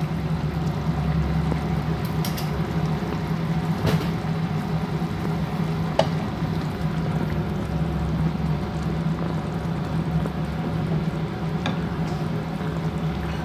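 Chicken curry simmering and bubbling in a pan, over a steady low hum, with a few short sharp clicks scattered through it.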